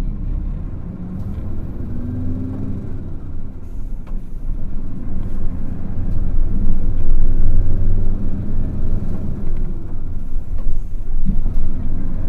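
Diesel engine of a Hino KL-HU2PMEK route bus pulling away and accelerating, heard from inside the bus. The engine note rises about two seconds in, drops back, then rises again from about five seconds, getting louder as the bus gathers speed.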